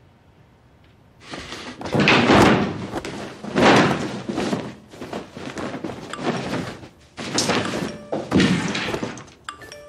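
Clothing rustling and swishing in a string of loud swishes, about six of them, as a shirt is flung on and pulled over the shoulders. Soft music comes in near the end.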